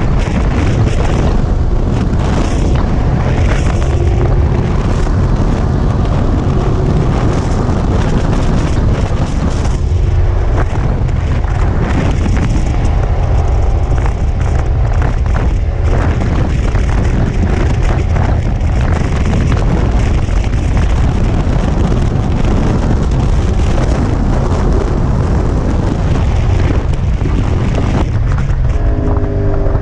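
Motorcycle at highway speed heard from a helmet-mounted microphone. Heavy wind buffeting rumbles over the engine and road noise, and a few slightly falling pitched tones come in near the end.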